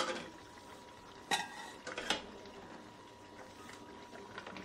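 Metal utensils clinking against a metal cooking pot: two sharp, ringing clinks about a second and a half and two seconds in, with quieter handling in between.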